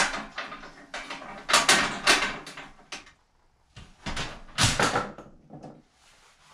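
Sheet-metal heat shield and hanging bracket knocking and rattling against the wall as they are worked into place, with small parts clinking. The sharp knocks come in two clusters, one about a second and a half in and another about four seconds in.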